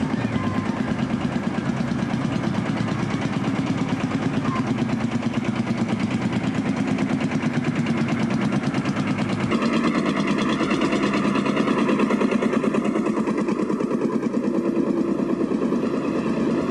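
Vintage tractor engines running as the tractors drive past in procession, a rapid, even beat of firing strokes; about ten seconds in the sound changes as another tractor's engine comes closer and takes over.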